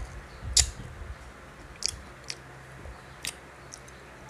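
Biting into and chewing slices of sour Indian mango, close up, with several sharp crisp snaps, the loudest about half a second in.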